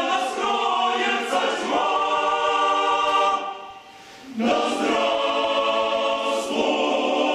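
Male choir singing a cappella in full chords. The voices break off for about a second midway through, then come in again together.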